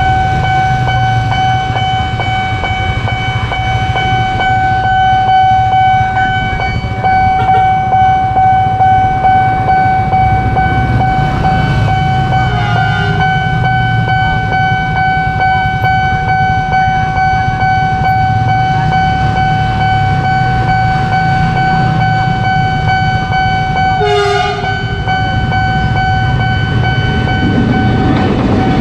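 Level-crossing warning alarm sounding one steady, unbroken high tone over a low engine rumble, with two short horn blasts, one about midway and one about four seconds before the end, as a CC 300 diesel locomotive approaches the crossing.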